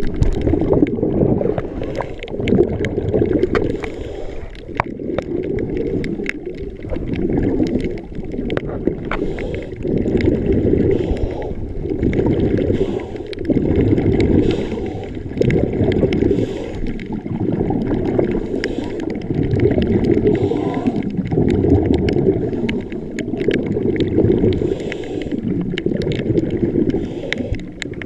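Muffled underwater sound through a camera housing: scuba exhaled bubbles from a regulator rumble and gurgle in repeated surges every couple of seconds, with faint scattered clicks.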